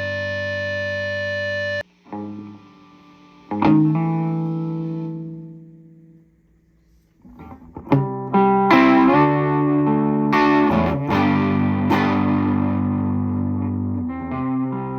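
Electric guitar played through a Flum Dilly distortion and boost pedal. A held chord is cut off abruptly about two seconds in, and a single chord then rings out and fades almost to silence. From about eight seconds in, a busy run of overdriven chords follows.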